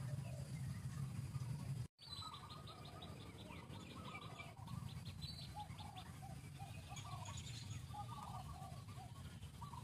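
Birds chirping: a low steady rumble for about two seconds, then after a brief dropout a fast ticking trill for a few seconds and a series of short chirps.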